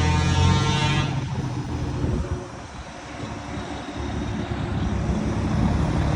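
Heavy diesel truck engine revving hard through its exhaust, the note cutting off sharply about a second in as the throttle is released. After a quieter moment the engine's low rumble builds again toward the end.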